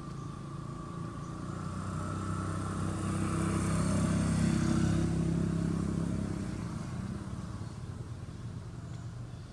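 A motor vehicle's engine passing by: a steady engine hum that grows louder, is loudest about halfway through, then fades away.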